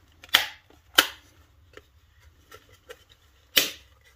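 Plastic front cover of a Dyson vacuum battery pack being pressed back on by hand: three sharp plastic clicks and knocks, two in the first second and one about three and a half seconds in, with light handling ticks between.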